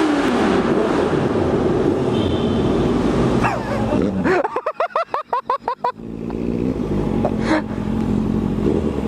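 Motorcycle engines running and being revved. About halfway through there is a stretch of a second or two of rapid pulsing, with the pitch sweeping up and down, before a steadier engine note returns.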